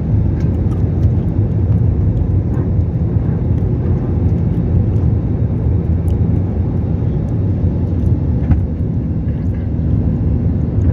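Jet airliner on takeoff: a steady low rumble of engines and rushing air that holds at a constant level throughout.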